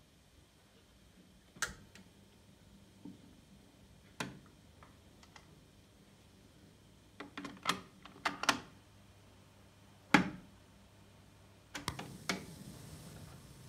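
Sankyo STD-1800 cassette deck handled: a string of sharp mechanical clicks and clunks as the cassette door is opened, a cassette is loaded and the door snapped shut, then a piano-style transport key is pressed down. After the last clicks the tape mechanism runs faintly.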